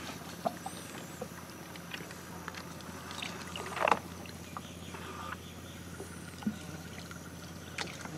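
Water splashing and light knocks around a small boat on a lake, over a steady low hum; the loudest is a short splash about four seconds in.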